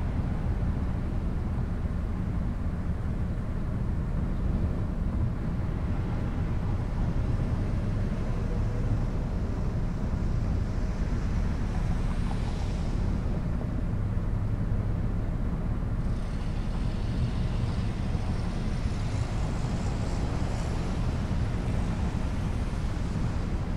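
Car driving through city streets, heard from a camera mounted on its roof: a steady low rumble of road noise and wind, with a higher hiss coming and going in the second half.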